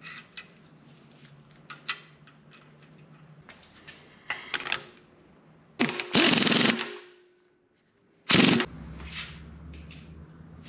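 Small metal clicks as ball-joint parts are handled in a vise, then an impact wrench hammering on the Volvo 240 ball joint's fastener in two bursts: about a second long, then a shorter one about two seconds later.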